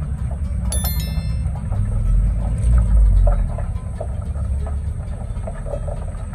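Low engine rumble, swelling about two to three seconds in, with a short bell-like ding about a second in.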